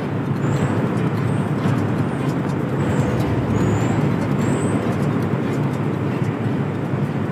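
Steady, loud low rumble of power-plant machinery picked up on a phone, with faint short high chirps repeating every half second to a second.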